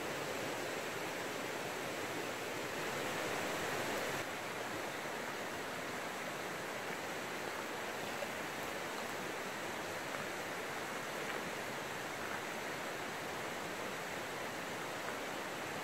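Steady rush of flowing river water, an even hiss without distinct events, dropping slightly in level about four seconds in.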